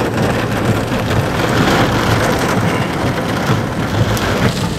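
Heavy rain falling on a moving car's roof and windscreen, heard from inside the cabin, over a steady low rumble of engine and road noise.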